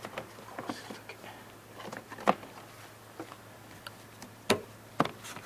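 Sharp clicks and knocks of car parts being handled and fitted, the loudest about two seconds in and twice near the end, over a low steady hum.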